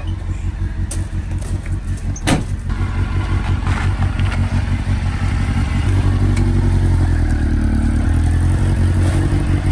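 A Suzuki sport motorcycle's engine idling, a steady low rumble that grows louder from about six seconds in, with a sharp click about two seconds in.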